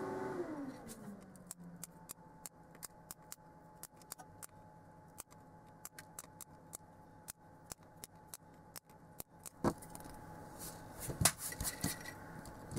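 Sharp metallic clicks of flush cutters snipping excess component leads off a soldered circuit board, irregular, one or two a second, louder and closer together near the end. Under them a steady hum slides down in pitch over the first second or two, then holds low.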